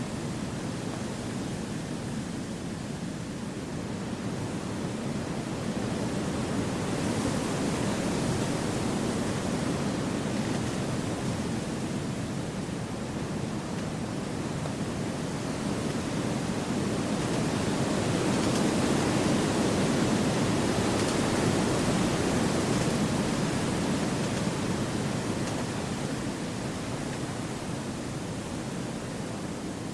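Wind blowing through forest trees: a steady rushing that swells a little about a fifth of the way in, and more strongly just past the middle.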